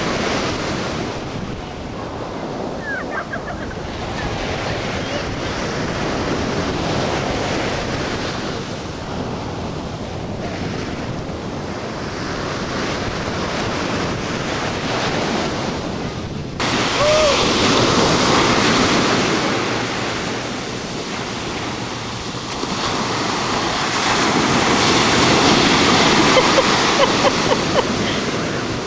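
Ocean surf washing on a beach, with steady wind buffeting the microphone; louder in the second half.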